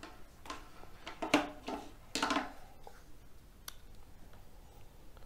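Faint handling noise: a few light plastic clicks and rustles as a drill's lithium battery pack is picked up and handled, with sharp clicks about a second and a half in and again near the end.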